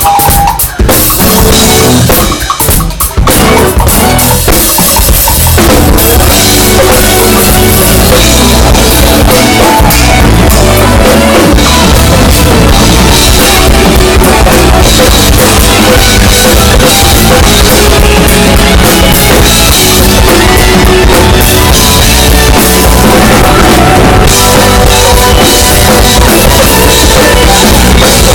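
Live band playing with a loud drum kit to the fore, kick drum and snare prominent. The first few seconds are choppy drum hits with gaps, after which the full band plays steadily.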